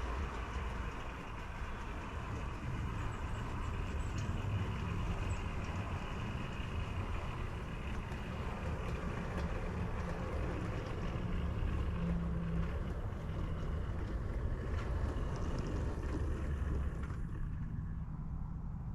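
Steady running rumble of vehicles, with a continuous low drone and a hiss above it; the hiss drops away about seventeen seconds in.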